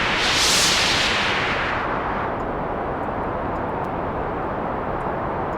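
White noise through a one-pole low-pass filter. It starts as a bright, full hiss, then darkens over about two seconds as the cutoff sweeps down and the high end is cut. It settles into a duller, steady rush with a smooth roll-off above a few kilohertz.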